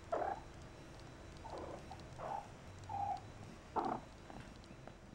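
Persian kittens mewing: about five short, separate mews spread across a few seconds.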